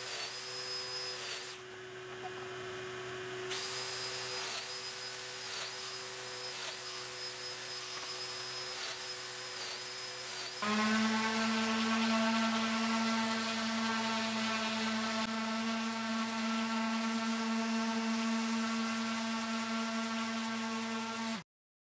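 Domino joiner running, its pitch dipping briefly every second or two as the cutter plunges into the plywood panel to cut mortises. About halfway through it gives way to a louder, steady random orbital sander running on a board, with a dust extraction hose attached, which cuts off suddenly near the end.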